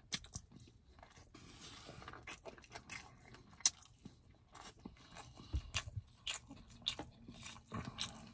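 Close-up chewing of a forkful of rice, with many short wet mouth clicks and lip smacks scattered through it.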